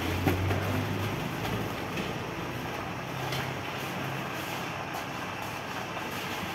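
Steady mechanical running noise with a low hum that fades after about a second and a half, as water pours into a dough mixer's bowl of flour.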